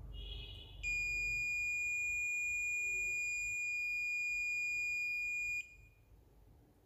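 Mastech MAS830L digital multimeter's continuity buzzer giving one steady high beep for nearly five seconds, then cutting off suddenly, after a short fainter beep at the start. The beep signals a short across the capacitor under the probes.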